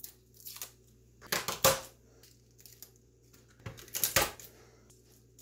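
Garlic cloves being broken apart and peeled by hand, the papery skins crackling in short bursts. About four seconds in, a chef's knife trims a clove on the cutting board with a few sharp knocks.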